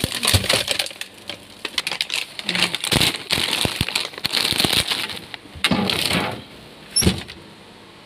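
Plastic wrapping of frozen-food packages crinkling and rustling, with cardboard boxes knocking and sliding against each other as they are shifted by hand. A single sharp click about seven seconds in, then it goes quieter.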